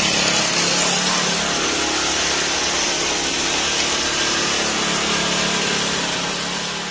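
Small engine of a ChinaPed motorized bike running steadily at a constant speed, turning a DIY alternator that lights the bike's LED lamps.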